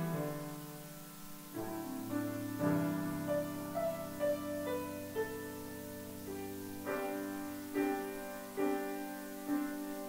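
Piano playing slow chords and melody, with chords struck in a steady beat about once a second from about seven seconds in.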